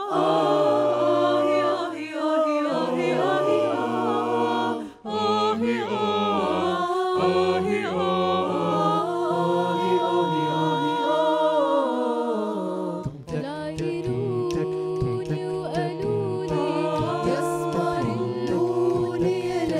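Mixed a cappella choir of men's and women's voices singing an Egyptian Canal-cities folk song in held harmonies over a moving bass line, with no instruments. About 13 seconds in, the low voices switch to short rhythmic notes with clicks.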